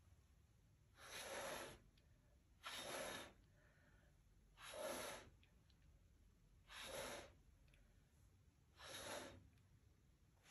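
Faint puffs of breath blown by mouth onto wet acrylic pour paint, five short breaths about two seconds apart, pushing the paint outward.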